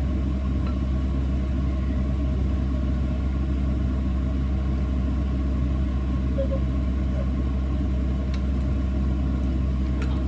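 A household machine running with a steady low rumble and hum and no squeak.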